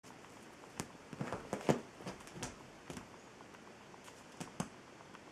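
A kitten batting and pawing at a piece of paper: faint, irregular paper rustles and soft taps, clustered around the first two seconds and again near the end.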